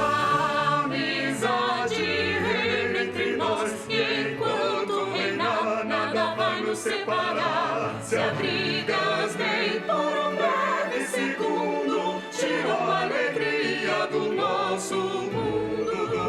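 Cartoon soundtrack music: a choir singing over an orchestra, the voices wavering with vibrato.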